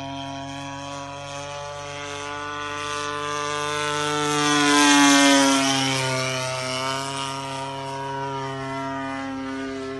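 DLA 32 single-cylinder two-stroke gas engine of a Great Planes Waco radio-controlled biplane running at steady throttle as the plane flies past. It grows louder to a peak about five seconds in, then drops in pitch as it moves away.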